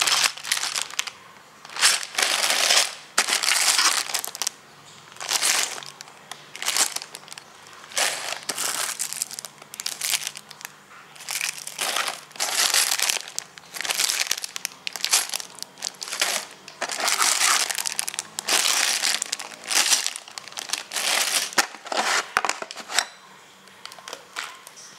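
Clear plastic bags of toy building bricks crinkling as they are handled and lifted out of a cardboard box, in irregular bursts that die down near the end.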